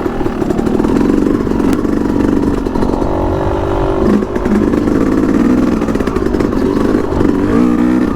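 Yamaha YZ250X 250cc two-stroke dirt bike engine running at low revs as the bike creeps over rocky ground. The revs rise and fall unevenly as the throttle and clutch are worked.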